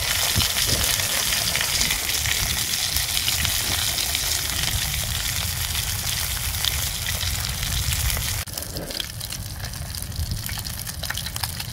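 Fish frying in hot oil in a non-stick pan on a portable gas stove: a steady sizzle full of fine crackles over a low rumble. About eight seconds in it drops suddenly to a quieter sizzle.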